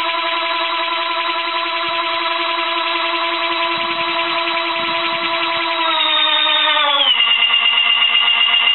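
Electric-motor-driven blower of a tip-jet model helicopter rotor, running with a steady whine as it spins the rotor. Its pitch steps down twice near the end, the second time with a small rise in loudness.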